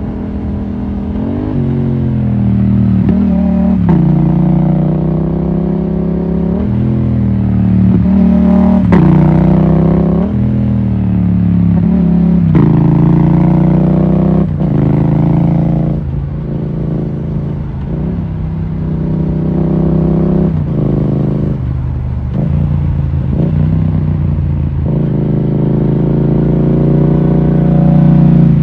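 Yamaha MT-07's 689 cc parallel-twin engine heard from on the bike, rising and falling in pitch over and over as the throttle opens and closes through the bends, with sudden drops in revs between the climbs.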